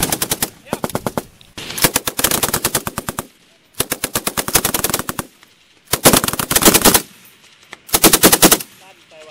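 M60 general-purpose machine gun firing 7.62×51mm rounds in six bursts, each half a second to a second and a half long, at about ten shots a second, with short pauses between bursts.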